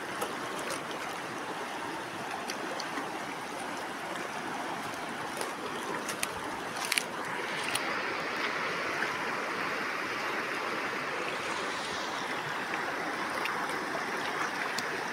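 Steady rush of a fast-flowing, shallow river running over stones, with a few short sharp ticks about halfway through.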